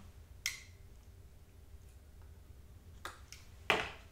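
A few short, crisp rustles and taps of cardstock cutouts being handled on a cutting mat, the loudest just before the end.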